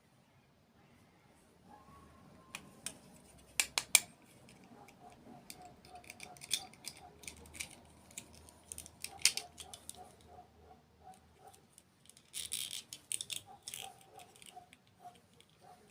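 Close-miked eating sounds: sharp crunches and cracks mixed with runs of soft rhythmic chewing at about four chews a second.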